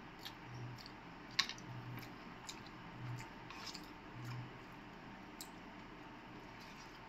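Soft, close chewing of a mouthful of carrot halwa, with a few faint clicks and scrapes as a small spoon works in a cardboard cup. The sharpest click comes about a second and a half in.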